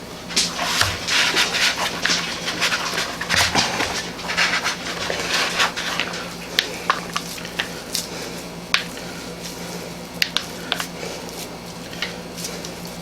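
Hands squishing and rolling a ground beef mixture into meatballs: soft wet squelching through the first half, then a few sharp clicks and taps.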